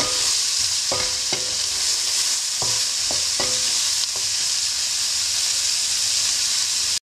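Rice, onion and carrot sizzling in hot oil in a nonstick wok as a wooden spatula stirs them. The spatula knocks against the pan about six times in the first three and a half seconds, each knock ringing briefly. The sizzle cuts off suddenly near the end.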